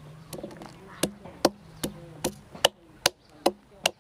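Wooden pestle pounding in a mortar: steady, evenly spaced knocks about two and a half times a second, starting about a second in after a few lighter taps.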